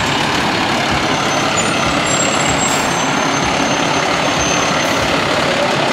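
Fire engine's diesel engine running steadily as the pumper drives slowly past.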